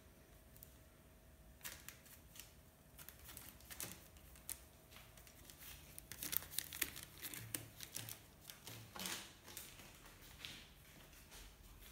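A kitten scrabbling about inside a paper-lined wooden crate: scattered light rustling of paper, scratches and clicks, busiest around the middle.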